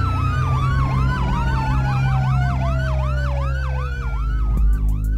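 Police siren wailing up and down rapidly, about four cycles a second, over a long, steadily falling tone and a low steady drone. A few sharp hits come near the end.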